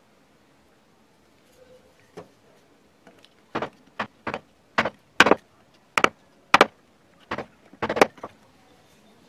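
Wood-carving gouge, a #5 sweep 27 mm, being driven into the wood by about a dozen sharp mallet blows on its handle, roughly two a second, starting about three and a half seconds in. A single lighter knock comes about two seconds in.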